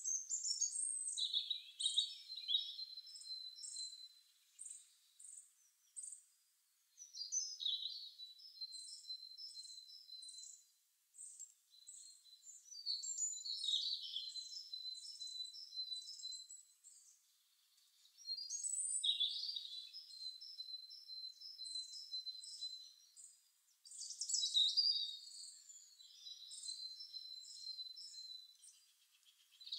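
Birdsong: a bird repeating a phrase of high chirps and trills about every five to six seconds, with quieter chirping between the phrases.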